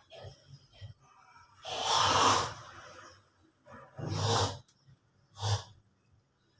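A person breathing hard close to the microphone: three loud breaths with a rush of air. The first, about two seconds in, is the longest; the last, about five and a half seconds in, is short.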